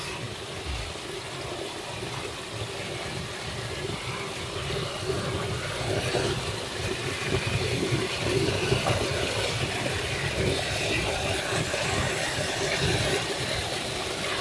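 Floodwater pouring and splashing into a concrete sewer chamber: a steady rushing churn with a low rumble under it, getting slightly louder about halfway through.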